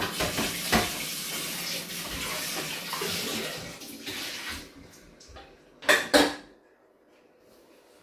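Tap water running into a kitchen sink while dishes are washed by hand, with clinks and knocks of crockery and pots. The running water fades out after about four and a half seconds, and two loud clatters of dishware follow about six seconds in, then only faint handling clicks.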